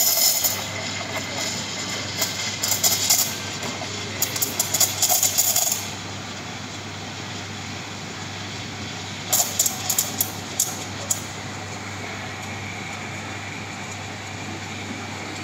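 Espresso machine steam wand steaming milk in a stainless steel pitcher: a steady hiss. Through the first half it is broken by bursts of sharp crackling chirps, the sound of the wand tip drawing air into the milk, and a short run of chirps comes again a little later. After that only a smoother hiss remains as the milk is rolled and heated.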